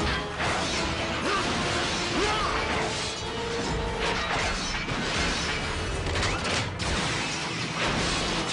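Cartoon battle sound effects of giant robots fighting: metal clanks, crashes and whooshes of blows, several sharp impacts, over a continuous action music score.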